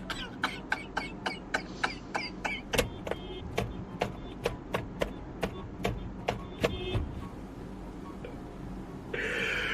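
A rapid, even series of sharp clicks, about three to four a second, that stops about seven seconds in.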